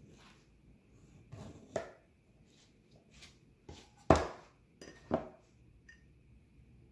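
Kitchen knife cutting into the skin of whole mullet on a silicone mat in several short strokes, then sharp knocks of the knife and a ceramic bowl being handled, the loudest about four seconds in and another about a second later.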